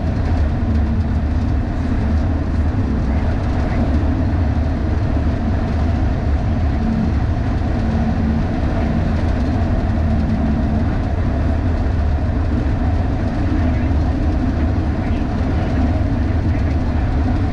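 Steady low rumble of a MAN LE280B 4x4 truck driving at motorway speed: wind buffeting the roof-mounted microphone over tyre and engine noise.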